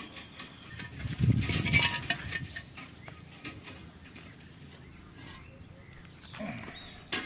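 Steel rebar and stirrups being handled: a rough scraping rustle about a second in and a few light metal clicks. Near the end comes a sharp knock as a hollow concrete block is set down onto another block.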